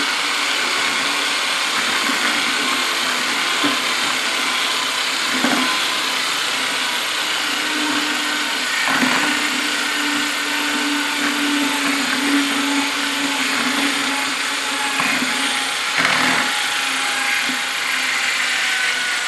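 Electric drill with a paddle mixer running steadily in a bucket, stirring gelatin powder into water, with a low motor hum and a few brief knocks along the way.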